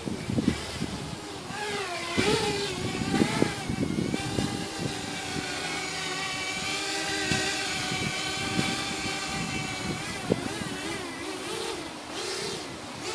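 Small 160-size quadcopter's brushless motors and 4045 propellers whining as it flies low, the pitch rising and falling with each throttle change.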